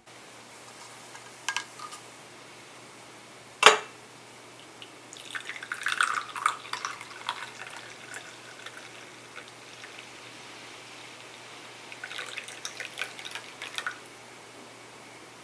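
Light handling of kitchenware while making coffee. There is one sharp knock about a third of the way in, and two spells of small clinks, taps and drips over a faint steady hiss.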